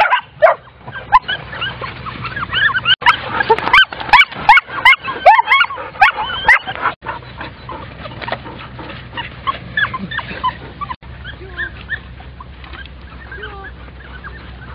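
German Shorthaired Pointer puppies whining and yipping: many short, high cries overlapping thickly, thinning out and growing fainter after about seven seconds. A few sharp clicks sound among the cries in the first half.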